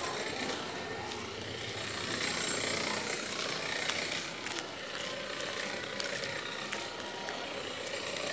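Steady outdoor street background noise with a few scattered faint clicks.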